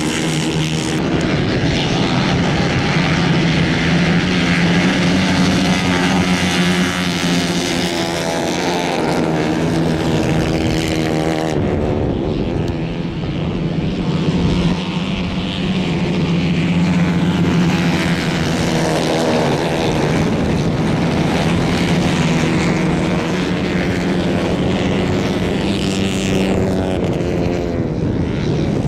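Several 150 cc racing kart engines running hard as the karts race round a dirt track, a steady buzzing drone with the pitch rising and falling as they accelerate out of corners and pass by.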